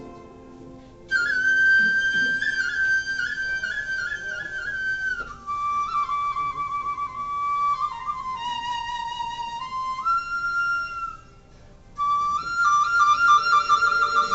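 Vietnamese bamboo flute (sáo trúc) playing a slow melody with trills. It comes in about a second in and breaks off briefly near the end before picking up again.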